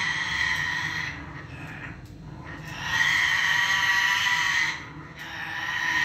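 Grey parrot screeching in three long, harsh, steady calls: one fades out about a second in, another lasts nearly two seconds in the middle, and a shorter one comes near the end.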